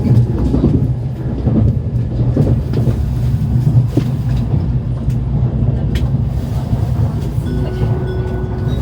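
Steady low rumble of a Shinkansen running, heard from inside the car. About seven and a half seconds in, the onboard chime begins with clear, held melodic notes, the signal that an announcement is coming.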